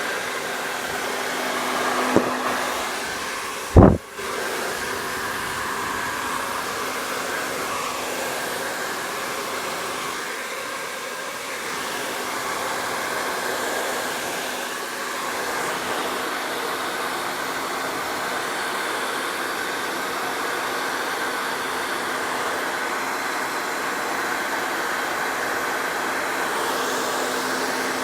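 Handheld hair dryer running steadily, a continuous rush of air over a motor hum. There is a light click about two seconds in and a sharp knock just before four seconds.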